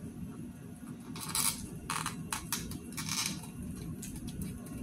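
Hands handling a small hollow plastic doll: a few short scraping rustles and light plastic clicks, starting about a second in.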